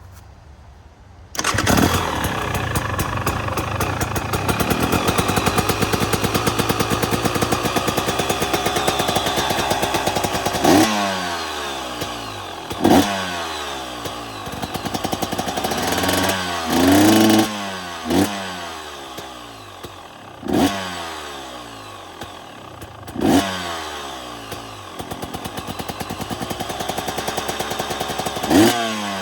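A 2023 KTM 250 XC's two-stroke engine starts about a second in and runs steadily at a fast idle. From about a third of the way in it is revved in about seven sharp throttle blips, one held a little longer, each falling back to idle.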